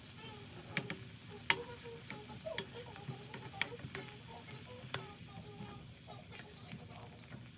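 Stirring food in a pan: a cooking utensil clinks sharply against the pan about five times over a low steady sizzle.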